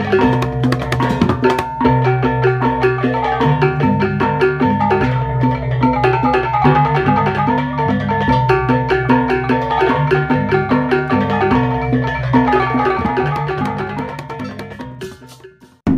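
Music of tuned percussion, with quick repeating xylophone-like notes over a steady drum pattern, fading out over the last couple of seconds.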